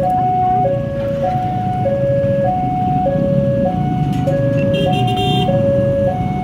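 Railway level-crossing warning alarm sounding: a steady electronic two-tone chime alternating between a higher and a lower note about every 0.6 seconds. Underneath is the low rumble of idling motorcycle engines waiting at the lowered barrier.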